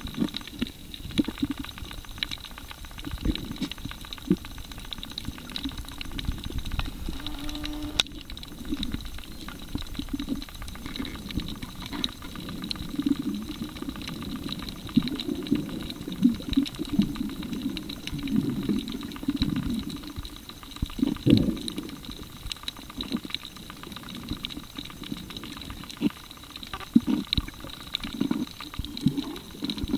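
Underwater sound picked up by a camera in a waterproof housing: irregular low, muffled surges of moving water, with scattered sharp clicks and a faint steady high tone throughout.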